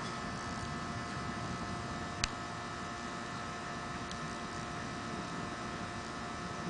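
Steady electrical hum over a hiss, with one sharp click about two seconds in.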